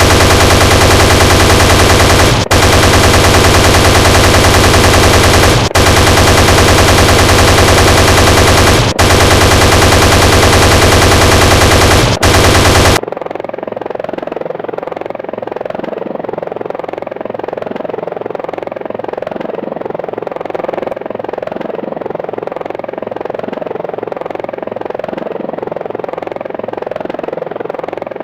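Sound effect of an Apache attack helicopter's chain gun firing in long, very loud continuous bursts with short breaks about every three seconds. The firing stops about halfway through, leaving the helicopter's steady rotor and engine sound at a much lower level.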